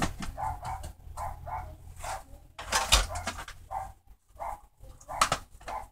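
A dog barking in short, repeated yaps, with a few sharp knocks from things being handled.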